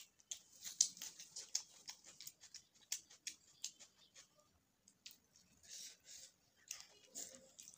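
Close-miked eating sounds: a run of small crisp clicks and crackles of food being chewed and handled, then a puffy fried bhatura being torn apart by hand, a soft papery rustle about six seconds in.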